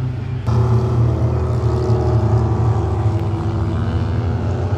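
A pack of front-wheel-drive stock race cars running together on the track, many engines at high revs blending into one steady drone. It becomes abruptly louder and fuller about half a second in.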